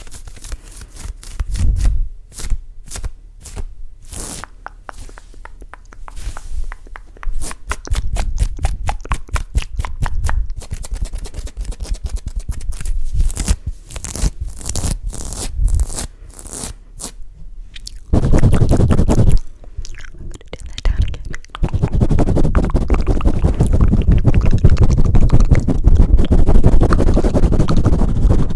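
Close-miked ASMR trigger sounds: a run of sharp, irregular clicks and crackles, then, about two-thirds of the way in, dense rubbing and scraping against the microphone with a deep rumble.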